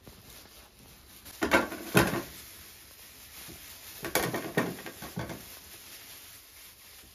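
A plastic bag crinkling and potatoes knocking as they are set down on a metal tray, in two short bursts of handling noise, the first about one and a half seconds in and the second about four seconds in.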